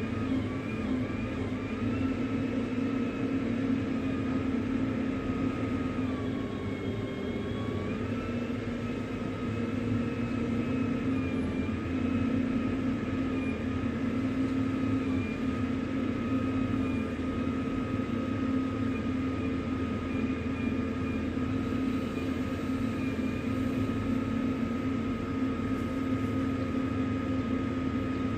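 A steady machine drone, constant in level, with a fixed hum and a higher whine that dips slightly in pitch for a moment and then holds steady.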